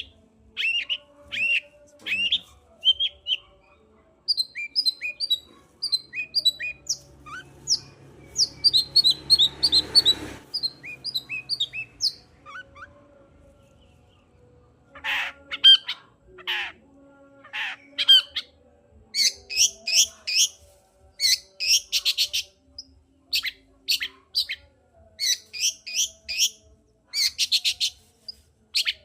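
Long-tailed shrike (cendet) singing: a varied run of short, high chirping notes, then from about halfway through, harsh rasping calls given in quick bursts. A brief hiss of noise rises and stops about eight to ten seconds in.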